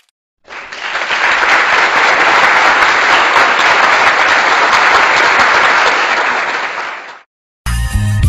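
Stock applause sound effect: a crowd clapping steadily for about seven seconds, fading out near the end.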